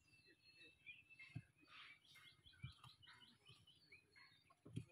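Faint birds chirping with many quick short calls, and three soft low thumps.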